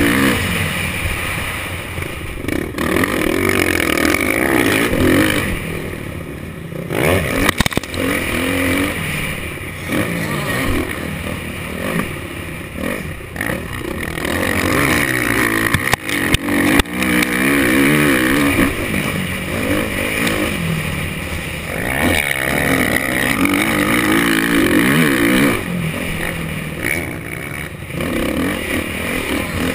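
Motocross bike engine heard from a helmet camera, revving up and easing off again and again as the rider accelerates and shifts around the track. A couple of sharp thumps break in, about a quarter of the way in and just past halfway.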